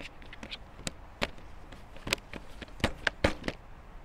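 Hands pressing and patting naan dough flat on a plastic chopping board: a string of irregular soft taps and knocks, several of them bunched between about two and three and a half seconds in.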